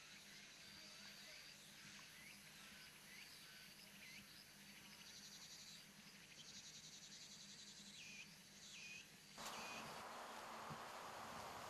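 Faint forest ambience: insects trilling high and steady, at times in fast even pulses, with a few short swooping chirps. About nine seconds in, a steady rushing noise sets in over it.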